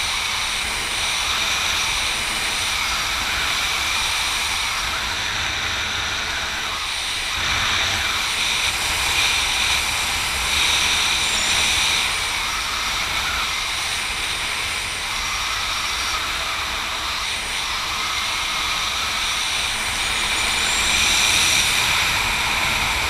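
Steady wind rushing over a helmet camera's microphone during a descent under an open parachute, with a steady high whistle running through it and slow swells in loudness.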